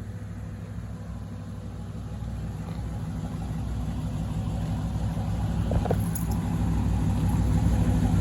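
Dodge Challenger Hellcat's supercharged 6.2-litre HEMI V8 idling with a low, steady rumble that grows gradually louder.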